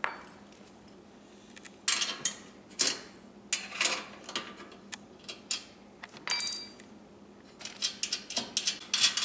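Combination wrench and steel nuts clinking on the pedal bracket's studs as the two nuts are loosened and taken off: an irregular run of sharp metallic clicks and clinks, one of them ringing briefly partway through, and a quicker patter of clinks near the end.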